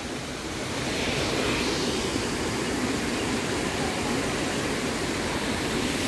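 Steady rush of flowing river water, an even noisy wash that rises slightly about a second in.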